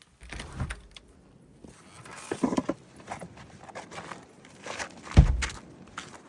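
Footsteps and scuffing in deep snow, irregular, with a heavy low thump about five seconds in.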